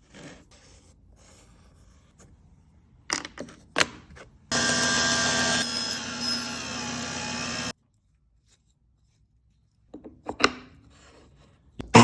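A few sharp wooden knocks, then a power tool runs steadily for about three seconds and cuts off abruptly. More knocks come near the end.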